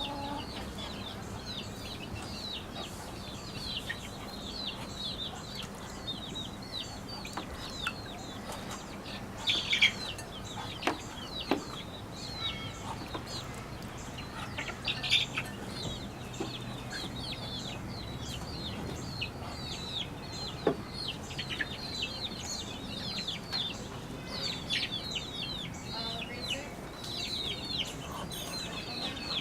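Chickens clucking, with many short, high, falling chirps throughout and a few sharp knocks.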